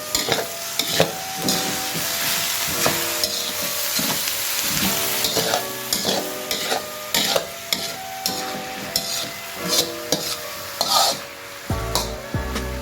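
Food sizzling in a hot pan while a metal spatula stirs and scrapes it, with frequent short clinks and scrapes over a steady frying hiss.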